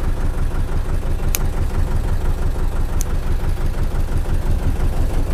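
Fishing boat's engine running steadily with a fast, even low throb. Two short sharp clicks stand out, one about a second and a half in and one about three seconds in.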